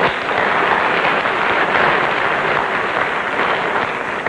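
Television studio audience applauding, the clapping dying away near the end.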